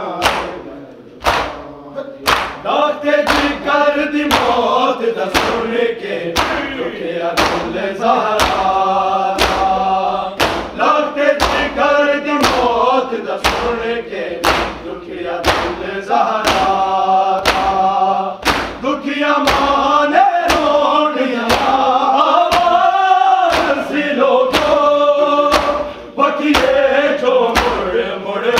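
A noha, a Shia lament, chanted by a group of voices in unison. It is kept in time by sharp, even thumps about once every 0.7 seconds, the beat of chest-beating (matam).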